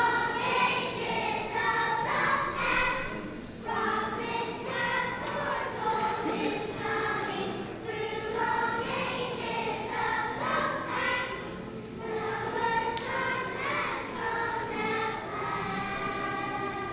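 A children's choir singing together in phrases, with short breaths between phrases about 4 and 12 seconds in.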